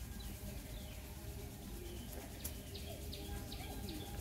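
Birds chirping: a series of short, quickly falling high chirps, thickest in the second half, over a steady low background rumble.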